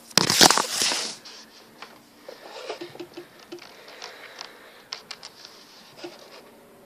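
Handling noise: a loud scuff against the microphone in the first second, then scattered light taps and rustling that die away near the end.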